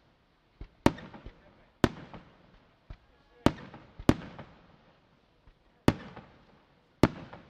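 Aerial firework shells bursting: six loud bangs at uneven gaps of about one to two seconds, each trailing off in an echoing tail, with a few smaller pops between them.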